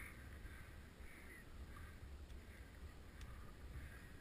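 Near silence: a faint low rumble of wind on the microphone, with two faint brief high calls near the start and about a second in.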